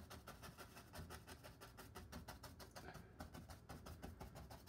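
Faint, rapid scratchy brushing of a bristle brush on a stretched canvas, blending wet oil paint, in an even run of about ten short strokes a second.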